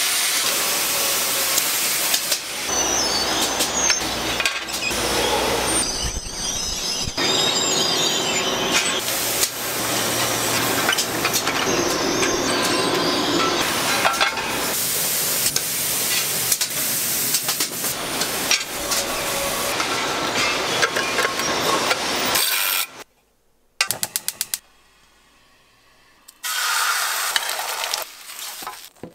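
Metal frying pans being machined and finished in a factory: a run of loud grinding, cutting and buffing noises whose tone changes every few seconds. The noise stops suddenly near the end, followed by a few sharp clicks and then a brief sizzle as beaten egg goes into the hot pan.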